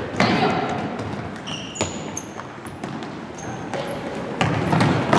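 Soccer ball being kicked and bouncing during play, a few sharp knocks spread over several seconds, with a few short high squeaks between them.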